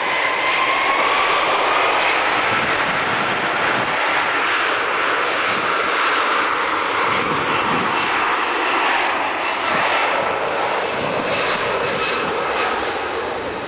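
Airbus A340-600's four Rolls-Royce Trent 500 turbofans at takeoff thrust during the takeoff roll and lift-off: a loud, steady jet rumble with a whine that rises in pitch over the first couple of seconds and then holds.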